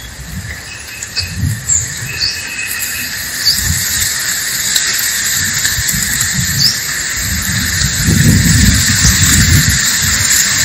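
Outdoor ambience: brief bird chirps scattered over a steady high hiss, with irregular low rumbling that grows louder near the end.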